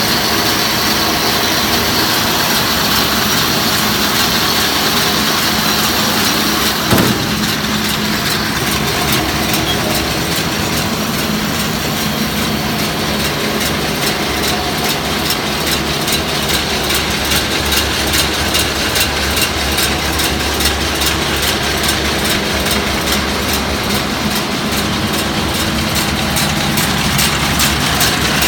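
Tractor engine running steadily, with a single clunk about seven seconds in, after which a fast, even pulsing runs on over the engine sound.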